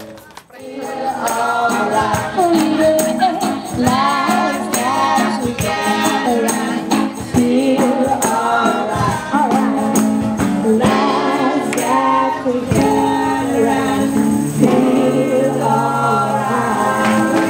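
Music: several voices singing a song together over a steady percussion beat.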